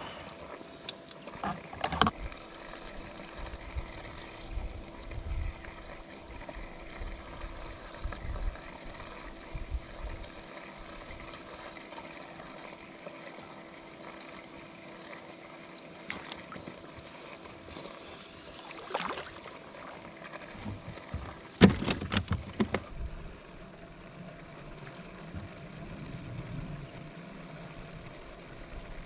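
Handling noise on a small fishing boat: a faint steady hum with scattered knocks and clicks, and a louder run of sharp knocks and rattles about three quarters of the way through.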